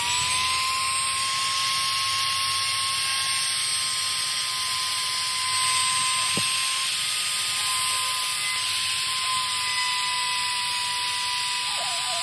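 Handheld electric rotary tool running at high speed with a steady high whine as its bit cuts into the plastic backing of a helmet ear pad. The plastic melts under the bit rather than cutting cleanly.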